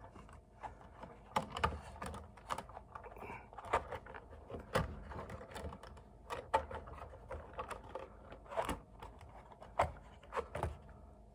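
Small irregular plastic clicks and taps of an HO-scale boxcar being set on the track and handled against the locomotive's coupler: wheels seating on the rails and the couplers knocking together, with a few louder clicks among them.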